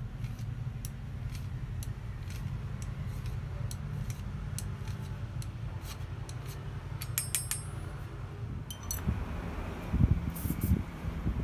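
Light metallic clicks from a pair of hand-forged steel scissors being handled and worked with a hand file, about two a second, with a short cluster of ringing metal clinks a little past halfway. Near the end come a few low knocks and a brief spray-can hiss at the pivot, over a low steady hum.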